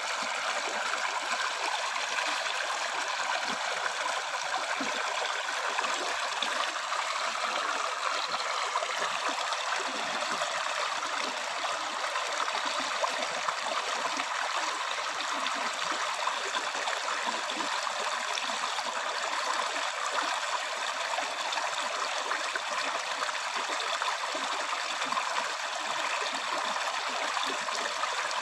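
River or stream water running over rocks, a steady rushing and burbling with no change in level.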